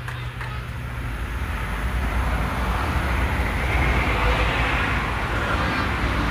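Vehicle noise: a steady low engine rumble, with a hiss that swells about three seconds in and stays to the end.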